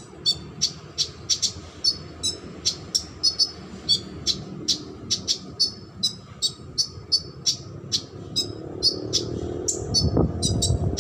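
A songbird giving short, sharp, high chirps in a rapid, even series of about three a second, with a low rumble rising underneath near the end.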